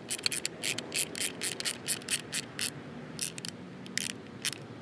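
Hand ratchet driver clicking as it turns a throttle position sensor mounting screw into the throttle body. The clicks come in short runs, a few a second, with brief pauses between strokes.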